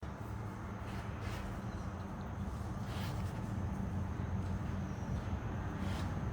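Steady low mechanical hum, like an engine running, under faint background noise.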